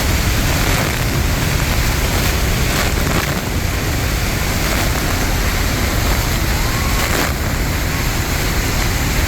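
Salto El Sapo waterfall heard from up close: a loud, steady rush of falling water with a heavy low rumble and no pause.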